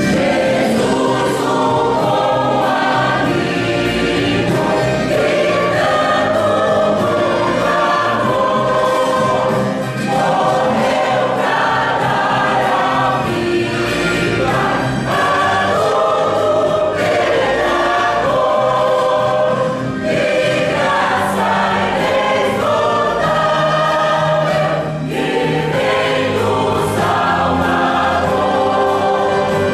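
A choir singing a Christian hymn with instrumental accompaniment, the phrases breaking briefly about a third and two-thirds of the way through.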